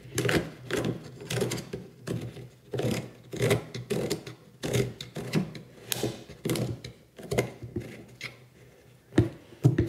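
The plastic cover knob on a Stonecho mini electric chainsaw being turned by hand to screw the side cover down over the bar and chain, clicking irregularly as it turns, with a couple of sharper clicks near the end.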